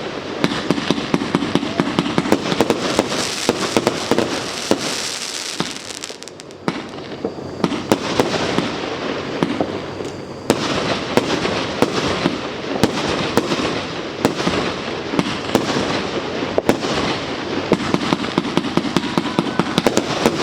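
Fireworks going off in a dense, continuous crackle of rapid sharp pops, thinning briefly about six seconds in and again near ten seconds before picking up again.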